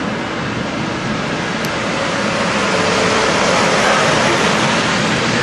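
Intercity passenger train rolling past along the platform: a steady noise of wheels and running gear that grows a little louder about two seconds in.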